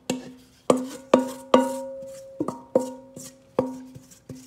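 A wooden spoon knocking against a metal mixing bowl while scraping sticky bread dough out of it: about nine sharp knocks at an uneven pace, each leaving the bowl ringing with a clear tone that dies away.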